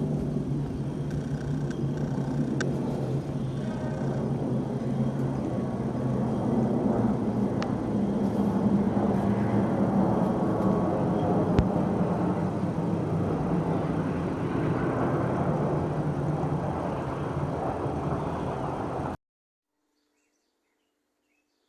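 Low-flying aircraft passing overhead: a loud engine rumble that swells to a peak around the middle, then eases. The sound cuts off suddenly a couple of seconds before the end.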